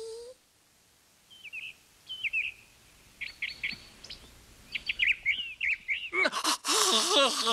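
Small birds chirping in short, separate calls. About six seconds in, a man's loud, wavering scream of shock breaks in and drowns them out.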